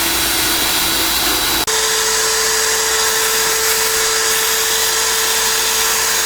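Electric drill running steadily as it drills into a snapped, rusted fender bolt, a constant motor whine with a hiss. About a second and a half in it cuts out for an instant and comes back at a higher pitch.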